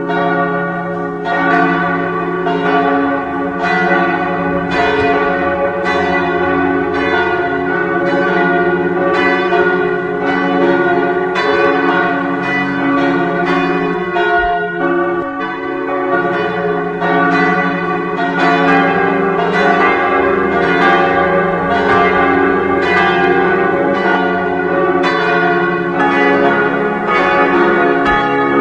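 Church bells of St. Peter's ringing in a steady run of strikes, about one and a half a second, each bell's tone carrying on under the next.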